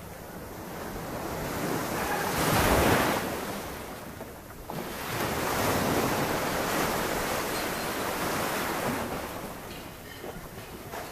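Sea waves washing in and churning in foam against the edge of a wooden deck, coming in surges: one swelling to a peak about three seconds in, a longer one through the middle, and another building near the end.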